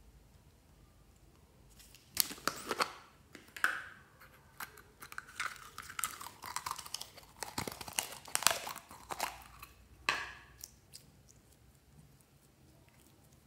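Thin clear plastic container crinkling and crackling in irregular bursts as it is squeezed to push out slime. It starts about two seconds in and stops about ten seconds in.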